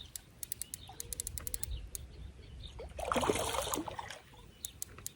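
Fishing reel clicking irregularly while a hooked carp is played, with a short rush of noise about three seconds in.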